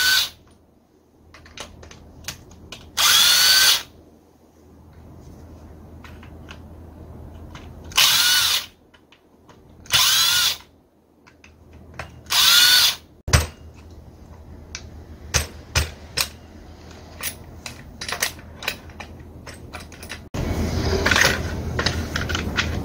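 Cordless drill-driver running in five short bursts, each under a second and each with a rising whine as the motor spins up, driving screws out of a chainsaw's housing, with small clicks of parts being handled between the bursts. A steady low rumble sets in near the end.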